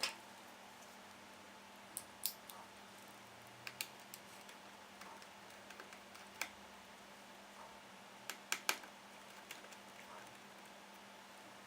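Scattered light clicks and taps of small laptop parts, screws and tools being handled, singly and in quick pairs at irregular intervals over a faint steady hum.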